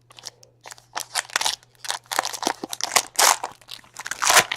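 Irregular crinkling and rustling as trading-card pack wrappers and cards are handled, a run of short sharp crackles.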